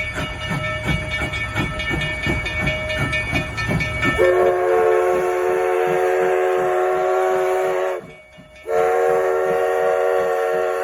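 Durango & Silverton narrow-gauge steam locomotive chuffing in a steady rhythm. About four seconds in its chime whistle sounds a held chord of several tones over the chuffing, breaks off briefly about eight seconds in, then blows again.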